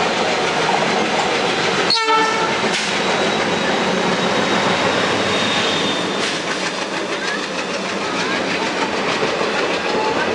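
Indian Railways WDG-3A diesel locomotive sounding its horn as its train rolls in, wheels clattering over the rail joints under a steady rumble.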